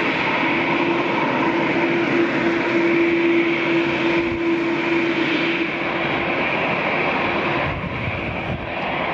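Boeing 787-10's GE turbofan engines running at taxi power: a steady jet whine over a broad rushing noise, with a low held tone that fades out about six seconds in.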